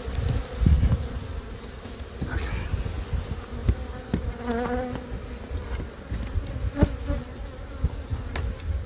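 Honeybees buzzing around an open hive of exposed comb, with a louder buzz that wavers in pitch about halfway through. A few sharp clicks come from a metal scraping tool working against the comb and wooden framing, over low thumps from handling.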